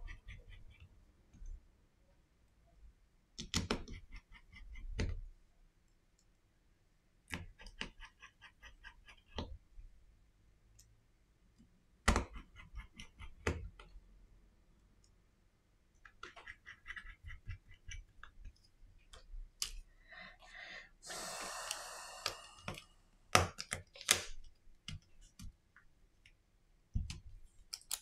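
Small phone parts and tools being handled on a silicone repair mat during a Redmi Note 9 Pro repair: scattered clicks and taps of plastic and metal pieces being picked up and set down, some in short rattling runs. About three-quarters of the way through there is a rustling scrape lasting a second or so.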